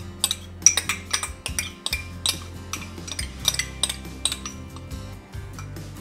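Metal measuring spoon clinking and scraping against a small glass prep bowl as minced garlic is scraped out, in many quick irregular clicks. Soft background music with low held notes plays underneath.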